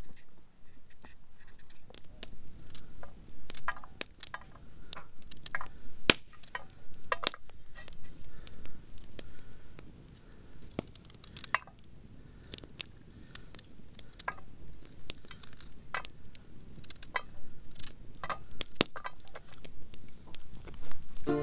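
Knife cutting a raw carrot held over a small metal camping pan, the pieces dropping into it: a run of irregular sharp clicks and snaps.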